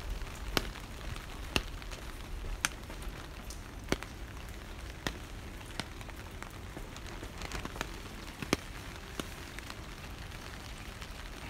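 Rain falling on wet pavement: a steady patter, with sharp drop ticks about once a second.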